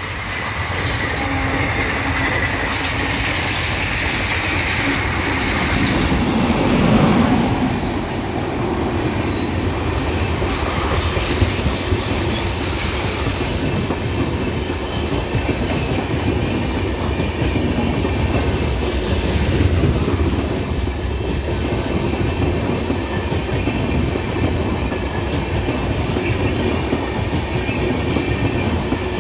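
An express train of LHB coaches, hauled by a WAP7 electric locomotive, passes close by on the track: a steady rumble and clatter of wheels on rail with some wheel squeal. It is loudest around seven seconds in.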